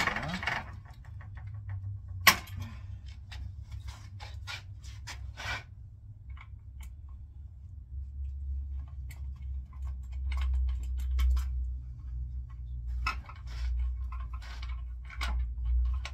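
Scattered metallic clicks and clinks of hand tools working on a rusty bandsaw's metal parts, with one sharp knock about two seconds in. A low rumble runs underneath and grows louder in the second half.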